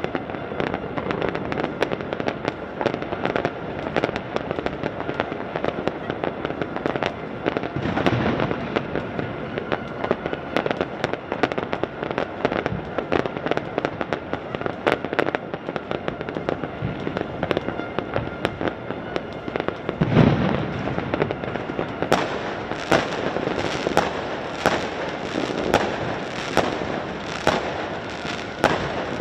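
Fireworks and firecrackers going off all across a city at once: a dense, unbroken crackle of bangs near and far. Two heavier booms stand out, one about a quarter of the way in and one about two-thirds in, and sharper single bangs come thick and fast near the end.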